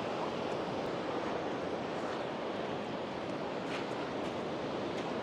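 Sea surf washing on the beach, a steady, even rush with a little wind, and a few faint ticks in the second half.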